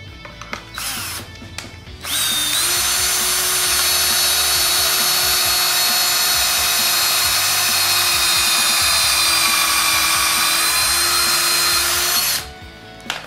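DeWalt cordless drill with a Kreg stepped pocket-hole bit boring a pocket hole through the jig into a treated pine board. A couple of short trigger bursts come first, then the drill runs steadily for about ten seconds as a steady whine and stops abruptly near the end.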